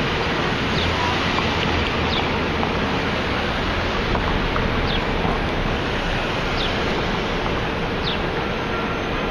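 Steady roar of city street traffic, with a few faint short high chirps scattered through it.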